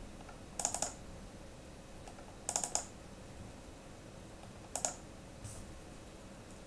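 Quick clicks from a computer mouse and keyboard at a desk, in short clusters: a few under a second in, several about two and a half seconds in, a pair near five seconds, and a faint single click after that.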